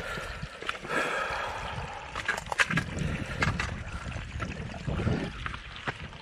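A hiker's footsteps crunching and scuffing on loose dirt and stones, with irregular sharp clicks from trekking-pole tips striking the ground.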